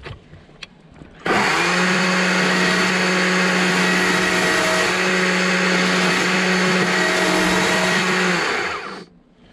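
Small electric chainsaw starting up about a second in and running at a steady pitch as its bar cuts into a small log, then winding down near the end.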